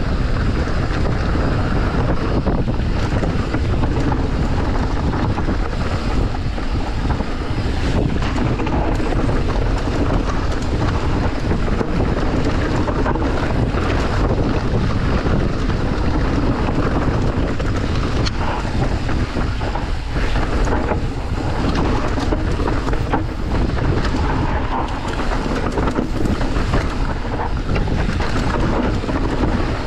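Wind noise on the microphone over the steady rumble of an electric mountain bike riding fast down a rough trail, with frequent knocks and rattles as it runs over rocks and bumps.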